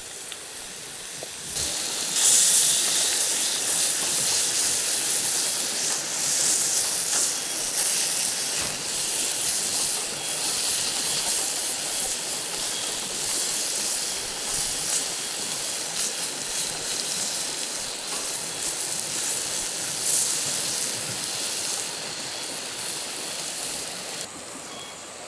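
Steak sizzling on a hot Himalayan salt block over a wood fire: a steady, loud hiss of fat and juices. It jumps louder about a second and a half in and falls back just before the end.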